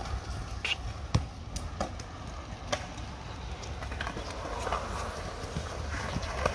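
Skateboards rolling on concrete ramps, with scattered sharp clacks and knocks of boards and wheels striking the concrete over a low rumble.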